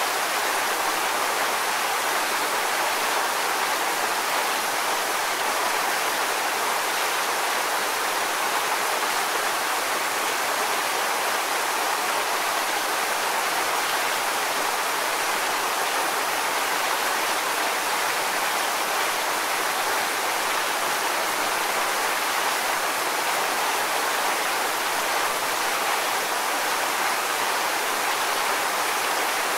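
Waterfall: water falling and splashing in a steady, unbroken rush with no change in level.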